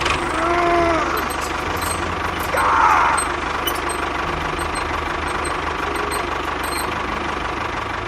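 A small engine-driven machine running steadily with a rough, knocking rattle.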